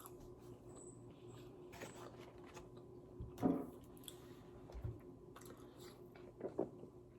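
Faint chewing and mouth sounds of someone eating McDonald's french fries, with a few short soft smacks, the clearest about three and a half seconds in and two more near the end, over a faint steady hum.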